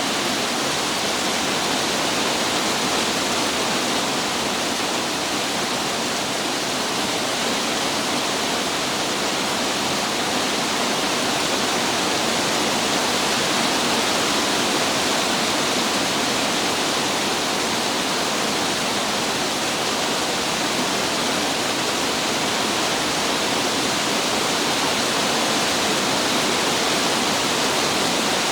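Heavy rain pouring down steadily, an even hiss with no breaks or gusts.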